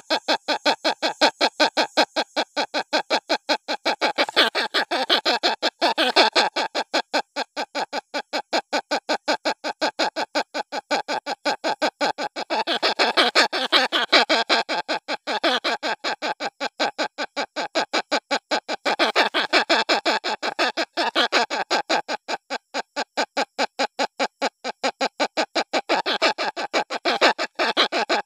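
Hornbill chick giving its crying begging call as a fast, unbroken run of short calls, several a second, swelling and easing in loudness. The call is used as a lure for adult hornbills.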